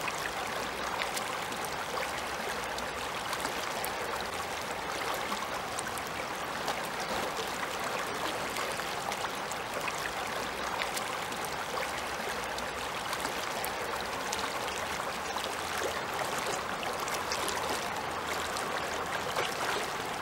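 Shallow river running fast over stones and pebbles: a steady rushing babble sprinkled with small splashes and trickles.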